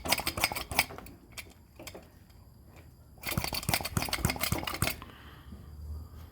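Hand vacuum pump being worked on a hose to the EGR valve: two spells of rapid clicking and rattling, a short one at the start and a longer, louder one from about three to five seconds in, over a faint low hum.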